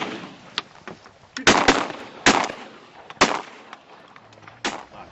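A volley of about five shotgun shots, unevenly spaced over a few seconds, fired at a high-flying goose by several hunters; the goose is missed.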